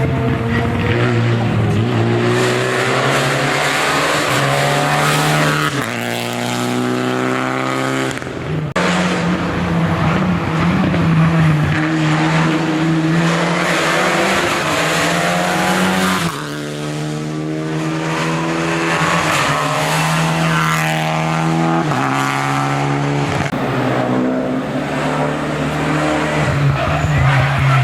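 Racing car engines revving hard up a hill-climb course, loud throughout, the pitch climbing and falling again and again as the cars accelerate and brake, with brief sudden drops in level.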